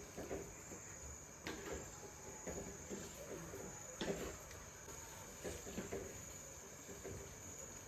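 Crickets chirping in a steady high trill, with a few faint, scattered soft taps.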